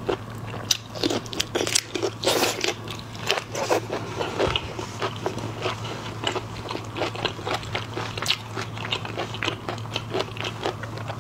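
Close-miked eating of a sauce-dipped shrimp: biting and chewing, with crunching and many small mouth clicks. The crunching is loudest about two seconds in.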